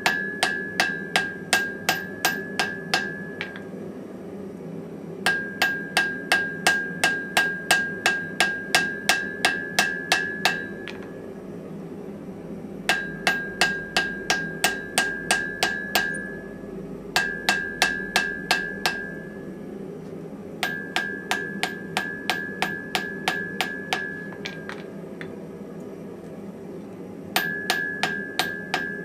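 Hand hammer forging a glowing steel hammer-head blank on an anvil: runs of quick blows, about three or four a second, with short pauses between runs. The anvil rings with a steady high tone through each run. A steady low hum runs underneath.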